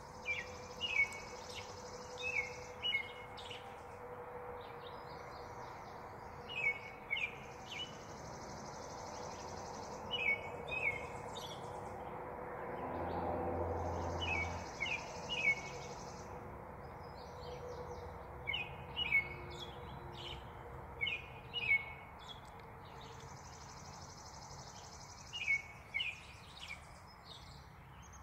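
Wild songbirds singing: a repeating phrase of a few short, sharp chirps alternating with a higher trill, about every six or seven seconds. A low rumble swells and fades around the middle.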